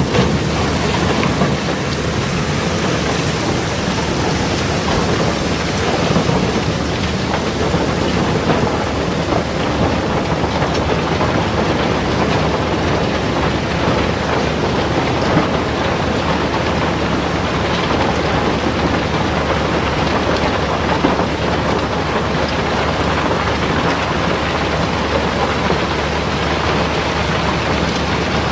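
River rock (rounded cobbles) pouring out of a barge's hold and tumbling down a chute in a continuous rumbling, clattering flow. A steady low hum runs underneath.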